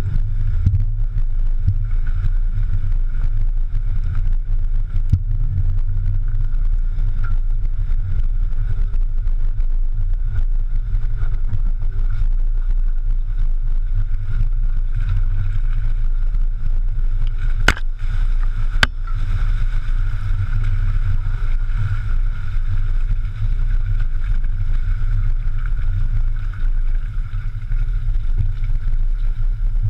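Off-road vehicle driving slowly over a rocky, muddy trail, heard from a camera clamped low on its rock slider beside the front tyre: a steady low rumble of the running vehicle, with two sharp knocks about a second apart a little past halfway.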